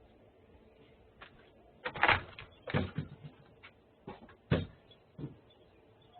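A series of irregular knocks and clatters, about seven, the loudest about two seconds in and again about halfway through.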